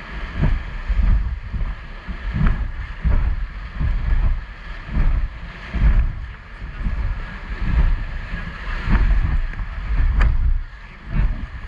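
Whitewater river rushing past an inflatable raft, with wind buffeting the microphone in heavy low rumbles that swell and fade about once a second.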